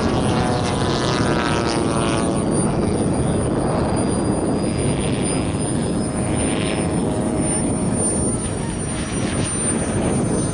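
Radio-controlled model warplane engines flying over the field, with a pitched engine drone that falls slowly in pitch over the first couple of seconds as a plane passes.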